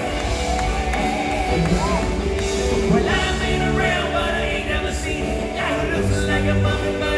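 Live rock band music with singing.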